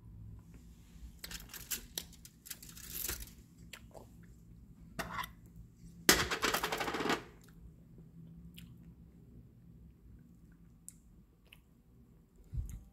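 Hands handling a chocolate bar on its foil wrapper and a glass jar of chocolate spread: several bouts of rustling and crackling, the loudest lasting about a second from about six seconds in. A dull low thump comes near the end.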